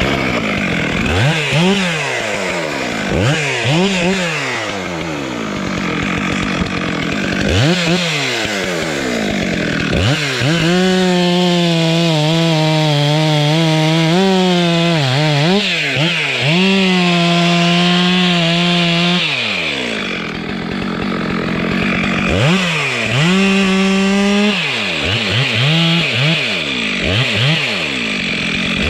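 Stihl two-stroke chainsaw revved up and down in a series of quick throttle blips, then held at a steady full-throttle pitch for several seconds as it cuts into the base of a tree trunk. It drops back about two-thirds of the way through and is revved in short blips again toward the end.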